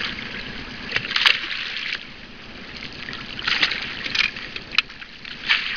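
Lake water splashing and sloshing at the surface in irregular bursts, about a second in and again from about three and a half seconds on, as a hooked walleye is played up beside the boat. A sharp click comes just before the end.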